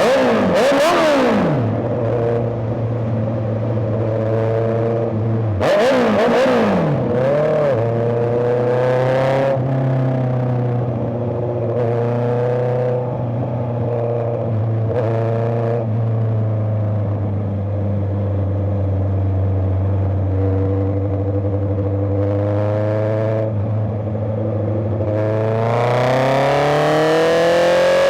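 Honda CBR650R's inline-four engine running at steady revs, with two quick blips of the throttle early on and the revs climbing smoothly near the end.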